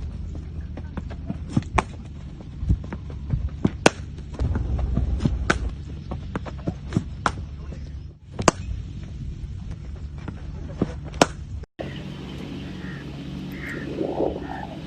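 Sharp knocks every second or two over a low steady hum, with the background changing abruptly near the end.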